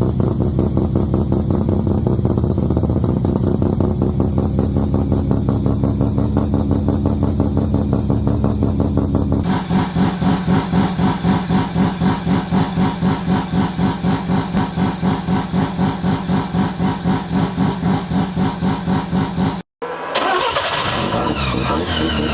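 Mazda 12A rotary engines in three clips: a steady, lumpy idle, then a choppy idle loping a few pulses a second, typical of a ported rotary, and after a brief drop-out about twenty seconds in, an engine revving up.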